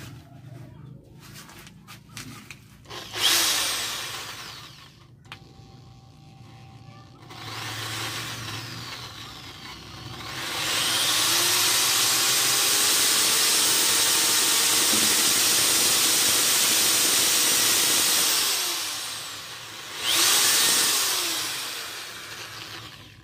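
Corded INGCO electric drill: a short burst of spinning about three seconds in, then the motor winds up and runs steadily for about eight seconds as the bit drills into a small piece clamped in a vise, and one more brief spin near the end.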